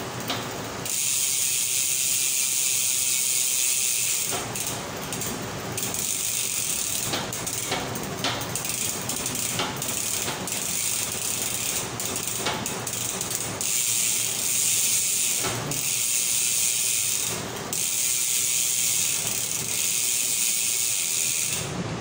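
Rapid mechanical ratcheting, a fast buzz of clicks in long stretches that stop and start again several times.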